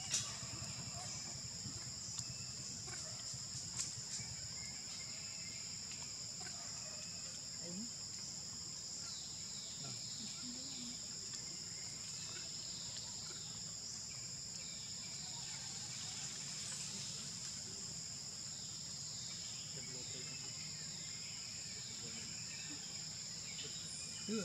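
Insects droning steadily, a continuous high-pitched buzz, joined from about nine seconds in by a run of short, quickly repeated falling chirps.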